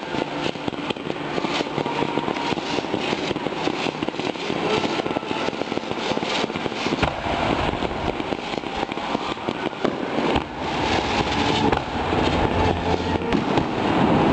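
Fireworks display: a dense, unbroken crackle of many rapid small pops and sparks, a little heavier and deeper in the last few seconds.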